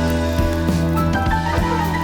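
Background music: pitched instrumental notes, with plucked guitar and keyboard, over a steady low bass.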